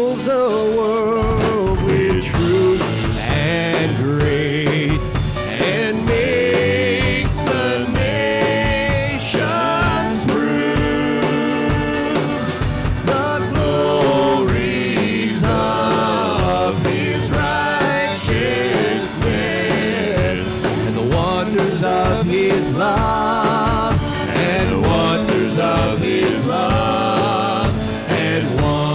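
Worship band music with singing over a steady drum beat.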